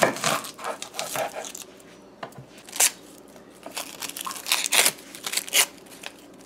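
Dry, papery onion skin crackling and tearing as it is peeled off by hand, in irregular bursts, after a knife cuts through the end of the onion at the start.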